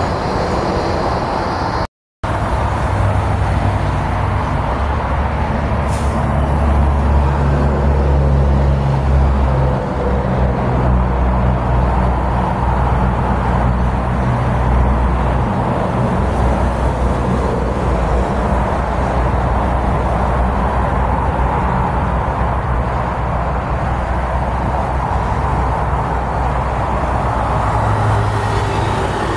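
Steady multi-lane highway traffic going past: tyre noise and engine rumble from cars and heavy trucks, swelling as big vehicles pass. The sound cuts out completely for a split second about two seconds in.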